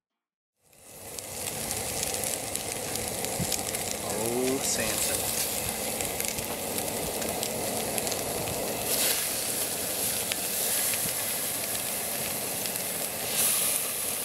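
Seasoned scup fillets sizzling on a hot grill grate, a steady hiss that fades in about half a second in, with brief louder surges of sizzle twice, in the middle and near the end.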